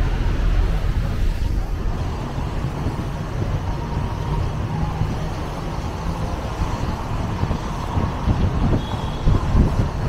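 Steady road traffic noise, a continuous low rumble of passing vehicles.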